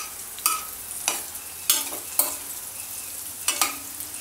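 Metal ladle scraping and clinking against a metal kadhai as fried green chillies and garlic are stirred, about six sharp scrapes at an uneven pace, each with a short ring. A faint sizzle from the still-hot oil runs underneath, the gas having just been turned off.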